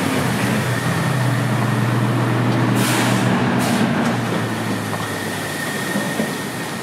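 Steady low engine hum, with two short hissing bursts about three seconds in, less than a second apart.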